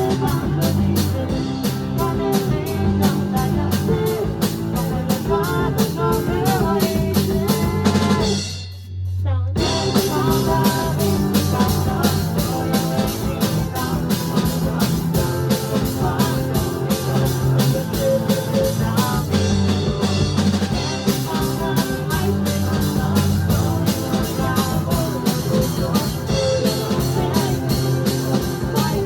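Band music with drums keeping a steady beat. About nine seconds in, everything but a low bass note drops out for about a second before the band comes back in.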